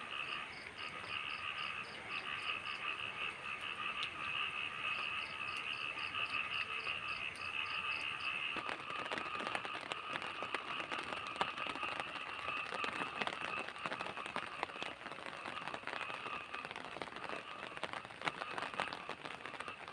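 Night chorus of frogs and insects: steady high trilling, with two runs of fast pulsed calls at about four a second in the first half. From about eight seconds in, a dense patter of fine rain-drop ticks joins it.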